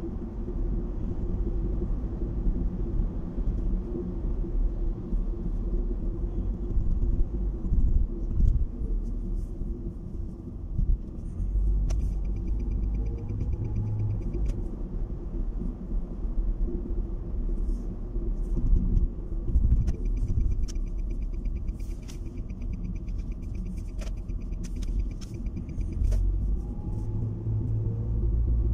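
Steady low rumble of road and engine noise inside a car driving along a highway. Twice there is a faint, rapid high ticking, and light clicks are scattered through the second half.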